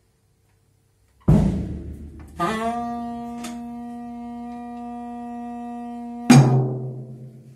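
Free-improvised jazz: a loud drum hit, then a tenor saxophone holds one long steady note for about four seconds, cut off near the end by a second loud drum and cymbal crash that rings out.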